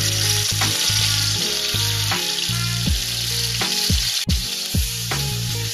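Chicken pieces sizzling steadily as they fry in hot oil in a steel wok on a gas stove, with background music with a steady beat playing along.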